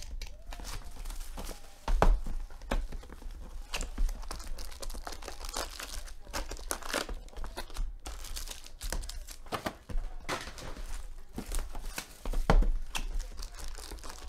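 A trading-card hobby box being torn open and its foil-wrapped packs handled: crinkling and tearing throughout, with sharp knocks about two seconds in and again near the end.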